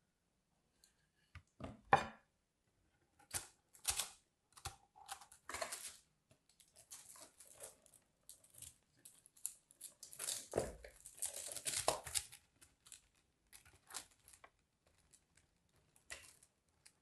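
Irregular crisp scraping, crackling and clicking as a small blade scores a bar of soap and a plastic slinky is handled. The loudest snaps come about two and four seconds in, with a denser stretch of crackling around ten to twelve seconds.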